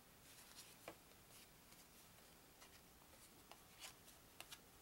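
Faint scrapes and soft clicks of stiff cardboard game player boards being handled and flipped over on a wooden tabletop, several short strokes scattered through.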